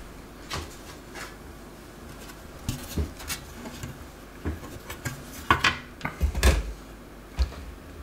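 Dell Latitude E6540 bottom cover panel being handled against the laptop chassis: scattered light clicks, taps and knocks, with one duller thump late on.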